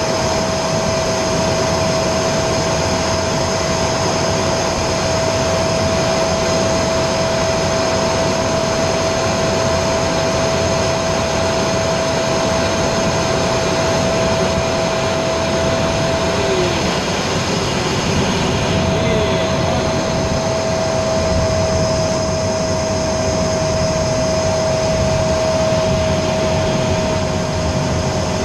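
Inside the cockpit of an Aero L-29 Delfin jet trainer in flight: the steady noise of its turbojet engine and rushing air, with a constant whine that drops out briefly about two-thirds of the way through.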